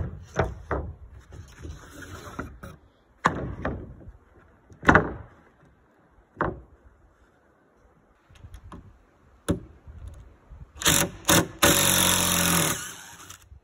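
Wooden deck boards being set down and knocked into place on joists, a string of separate wooden knocks. Near the end a cordless drill drives a screw into a board: two short bursts, then a steady run of about a second.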